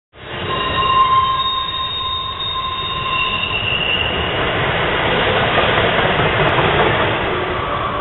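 Freight train container wagons rolling past, their steel wheels giving a high-pitched squeal on the rails for the first few seconds. The squeal fades after about four seconds into the steady noise of wheels running on the track.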